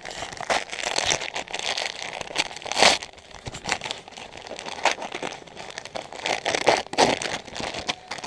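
Christmas wrapping paper being torn open and crumpled by hand right at the microphone: an uneven run of crackling rips and rustles, the loudest about three seconds in.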